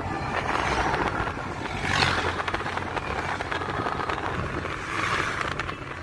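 Steady road rumble and rushing noise from a moving vehicle, swelling several times, most sharply about two seconds in.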